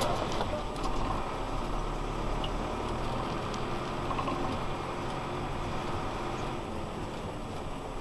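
Valtra N91 tractor's four-cylinder diesel engine running steadily while driving, heard from inside the cab.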